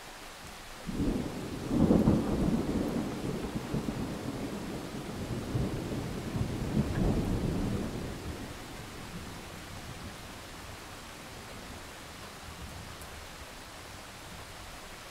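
Recorded thunderstorm: a long roll of thunder over steady rain. The thunder breaks about a second in, peaks soon after, swells again around seven seconds and rumbles away by about nine seconds, leaving the rain.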